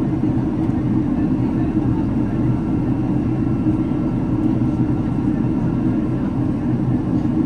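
Boeing 767-300ER jet engines and airflow heard inside the passenger cabin in flight: a steady low rumble with faint steady whining tones above it.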